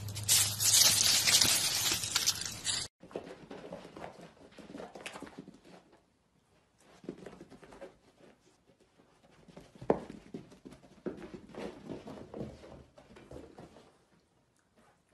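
A loud hissy rustling noise for about three seconds that cuts off suddenly. Then come soft, scattered scuffs and taps as a piglet noses a slipper about on carpet, with one sharp tap about ten seconds in.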